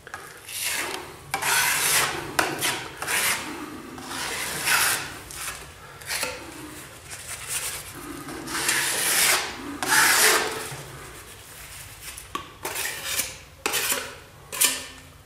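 Steel putty knife scraping across a wall in a series of irregular strokes, spreading fibre-reinforced filler over fibreglass mesh and stripping off the excess.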